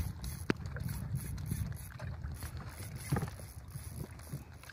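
Low, noisy rumble of wind on the microphone aboard a small inflatable boat, with one sharp click about half a second in.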